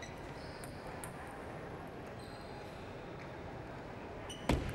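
Steady hall noise with a few faint ticks, then near the end a sharp double click of a celluloid table tennis ball being struck on the serve and bouncing on the table.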